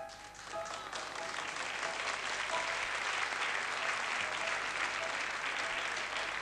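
A concert audience applauding, the applause swelling about a second in and holding steady, with a few faint short musical notes underneath.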